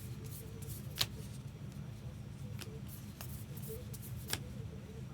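Trading cards being flipped through by hand: soft snaps and clicks of card on card, the sharpest about a second in and again near the end, over a steady low hum.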